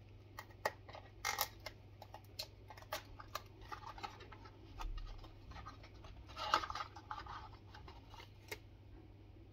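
Small paperboard charger box being opened by hand: the tear-tab seal ripping and the cardboard rustling and scratching in short irregular bursts, with a louder flurry about six and a half seconds in.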